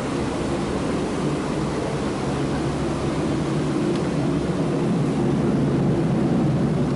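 A train running, a steady low rumble that grows a little louder about five seconds in.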